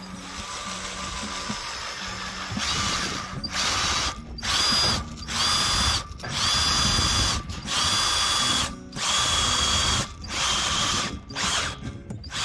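Makita cordless drill/driver driving a bolt into a Unistrut channel, its motor whining in repeated bursts of about a second each with short stops between them, starting about two and a half seconds in.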